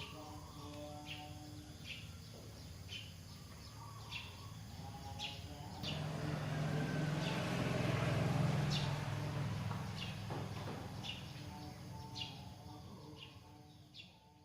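Soft background music with held notes and short bird-like chirps repeating about every half second to second. A low rumble swells in the middle and fades away.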